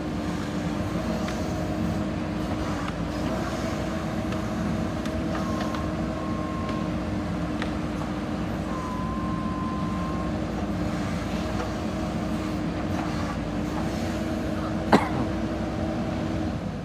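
JCB 3DX backhoe loader's diesel engine running steadily, with a brief higher whine twice in the middle and a single sharp knock about fifteen seconds in.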